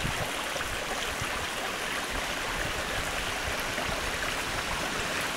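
A stream flowing steadily, an even wash of running water with no breaks.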